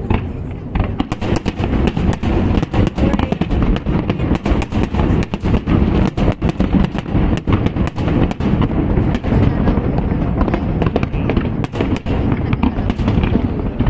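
A fireworks finale: shells bursting in rapid, overlapping bangs over a continuous low rumble, with crackling, starting about a second in and thinning out near the end.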